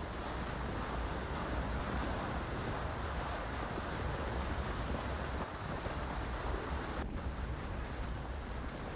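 Steady rushing noise of wind and rain on an outdoor microphone, with a deep, continuous low rumble underneath.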